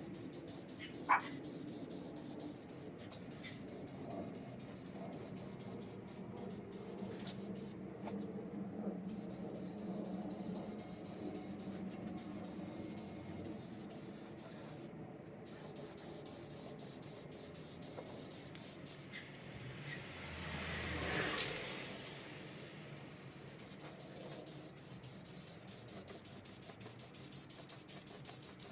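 Aerosol spray paint hissing out of the can in passes, with short breaks between them. A sharp click about a second in, and a swelling spray that ends in a loud click about three quarters of the way through.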